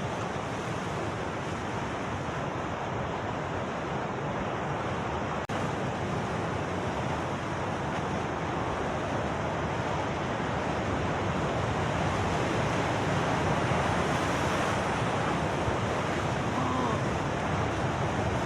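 Heavy sea surf breaking on coastal rocks: a continuous rush of waves and foam, with a momentary dropout about five and a half seconds in.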